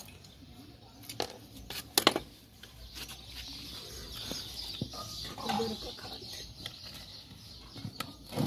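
Hands pressing compost into the soil of a clay flower pot: rustling with a few sharp knocks, the loudest about two seconds in. Birds call in the background.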